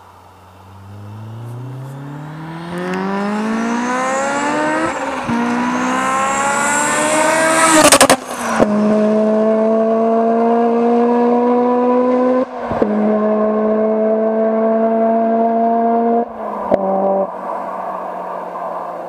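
Honda S2000's 2.0-litre F20C inline-four accelerating hard toward and past, its pitch rising steadily as it revs high through a long gear. It peaks with a sharp crack as it passes, about eight seconds in. It then pulls away in higher gears with two quick shifts and fades.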